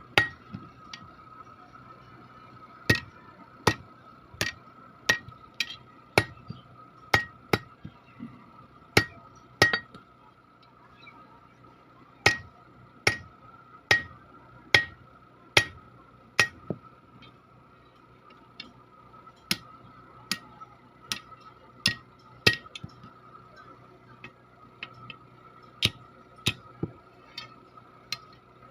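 Blacksmith's hammer striking iron on an anvil while forging a ladle: ringing blows in runs of about three every two seconds, broken by short pauses. A steady high hum runs underneath.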